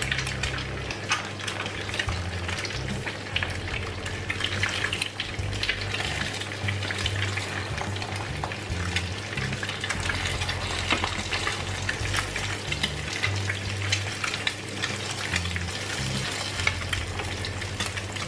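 Eggs frying in hot oil in a nonstick frying pan, a steady crackling sizzle of many small pops and spits.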